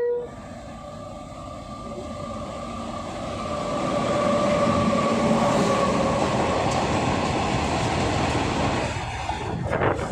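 WAG-9 three-phase electric locomotive and its freight wagons passing at speed: the rumble of wheels on rail swells over the first four seconds and stays loud, with a faint steady whine at first and a short knock near the end.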